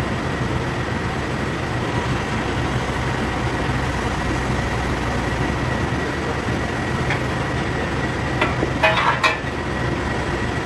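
Tata Hitachi EX110 excavator's diesel engine running steadily while the boom and arm move. A few sharp metal clanks come about eight to nine seconds in.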